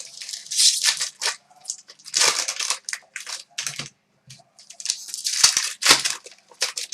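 Hockey trading cards and their packaging being handled: irregular rustling and sliding scrapes with light clicks, in several bursts with short pauses between.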